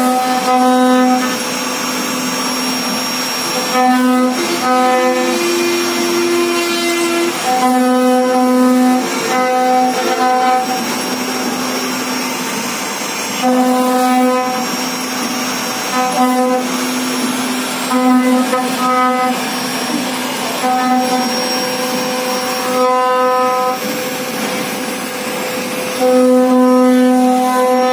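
CNC router spindle running with its bit carving a relief pattern into a wooden board: a motor whine mixed with rasping cutting noise. A pitched tone swells and fades every second or two.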